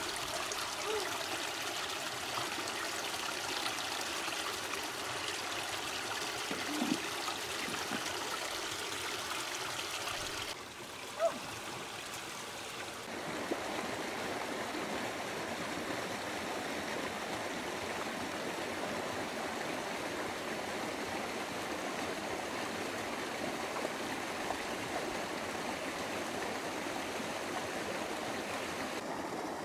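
Stream water running and splashing over rocks, a steady rushing hiss. The sound drops and changes about ten seconds in, then settles into a steadier flow from about thirteen seconds, with one brief sharp sound just after eleven seconds.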